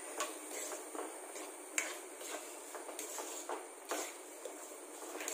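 Several sharp clicks and knocks of a utensil against a cooking pan, over a steady hiss.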